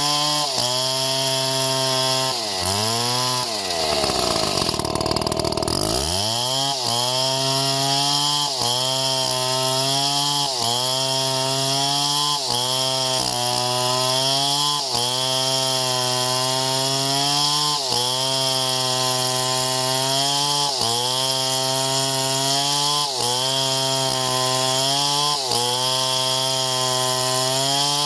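Chainsaw running at high revs while cutting wood, its engine pitch sagging briefly about every two to three seconds as the chain bites. About four seconds in, it drops almost to idle and revs back up.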